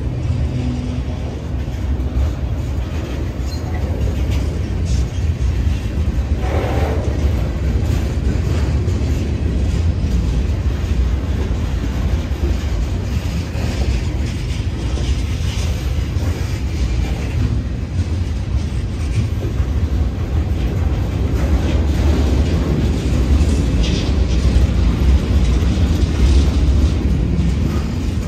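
Freight train cars rolling slowly past at close range on street-running track: a steady low rumble of steel wheels on rail, with a few scattered knocks.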